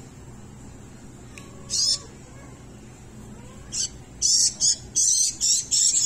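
Hand-reared fledgling songbirds giving high-pitched begging calls for food: one short call about two seconds in, then from about four seconds a rapid run of loud repeated calls, about three a second.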